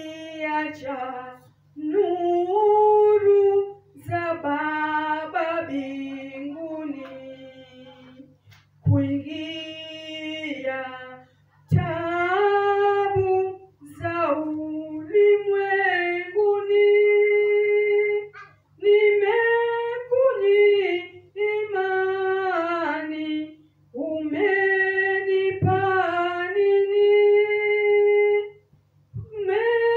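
A woman singing solo and unaccompanied into a microphone, in phrases of long held and sliding notes with short breaks between them. A faint steady low hum runs underneath.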